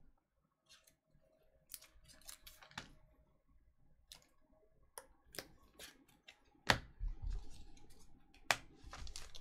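Trading cards and foil packs being handled and set down on a tabletop: scattered light clicks and taps, with a sharper knock a little under seven seconds in and another near the end.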